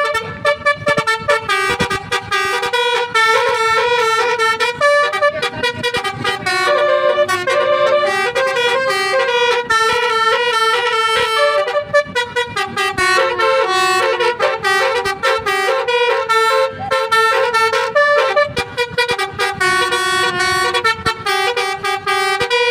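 Indonesian bus "telolet" musical horn playing a rapid tune of short, stepped toots, with a few longer held notes in between.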